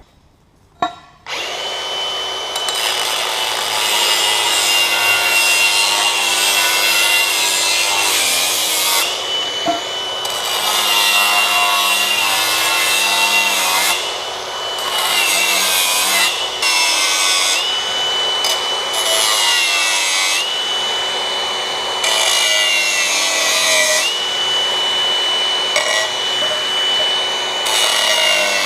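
Electric angle grinder cutting steel exhaust pipe in long passes. Its steady high whine sags in pitch as the disc bites and rises again as it is eased off, several times.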